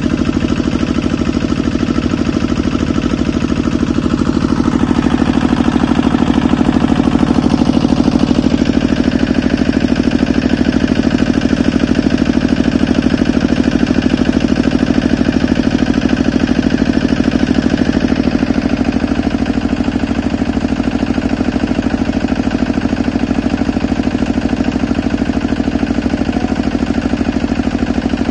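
Walking tractor's single-cylinder diesel engine running steadily, with fast, even firing pulses, powering the water pump used for drilling the well.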